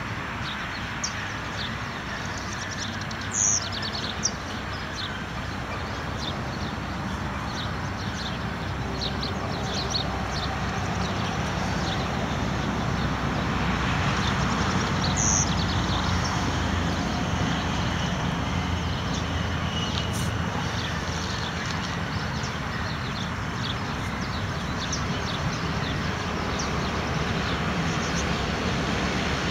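Steady outdoor background noise, a continuous rumble and hiss, with many short high chirps scattered through it.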